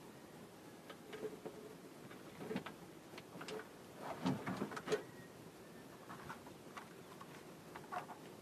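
A fishing handline being hauled in by hand over the side of a small canoe and wound onto a foam float: faint, irregular taps, rubs and short squeaks. They are loudest in a cluster about four to five seconds in.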